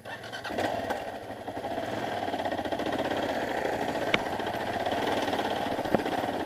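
Dirt bike engine pulling at low revs as the bike rides slowly up a rocky trail, the sound coming in suddenly and building over the first couple of seconds. Two sharp ticks are heard, about four and six seconds in.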